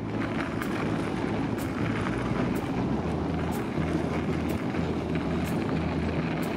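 Steady rushing wind noise on a bicycle-mounted camera's microphone, mixed with the rumble of bicycle tyres rolling over packed snow.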